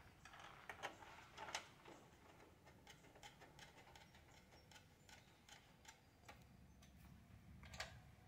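Faint, scattered clicks and ticks of small metal hardware being handled as 10-32 bolts are threaded by hand into the instrument's mounting inserts, with a few sharper clicks a little under a second in, about a second and a half in and near the end.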